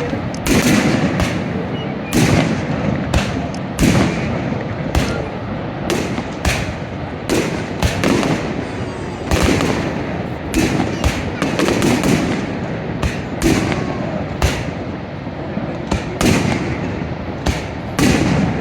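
Fireworks bursting in a rapid, continuous barrage of bangs, about two a second, some overlapping, over a steady rumbling haze.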